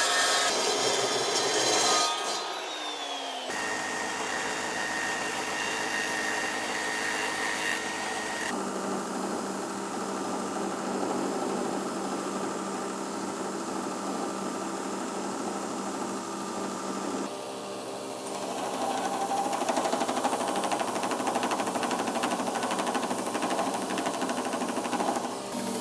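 Electric grinder running on steel, cutting and grinding the ends of a forged steel piece in several short stretches, with the motor spinning down about two seconds in.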